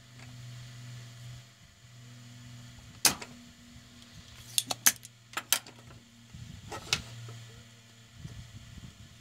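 Hand tools, a desoldering pump and soldering iron, handled at a bench over a circuit board: sharp clicks and clacks, one loud one about three seconds in, a quick cluster around five seconds and another near seven. A low steady hum runs underneath.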